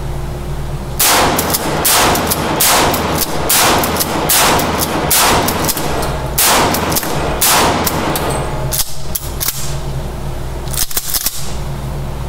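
Winchester 1300 Defender pump-action shotgun firing about eight shots in quick succession, roughly one a second, each blast ringing on in the echo of an indoor range. A few quieter sharp cracks follow near the end.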